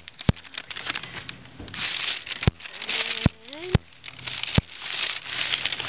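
Paper takeout bag rustling and crinkling as a hand rummages inside it, in uneven bursts, with a few sharp clicks scattered through.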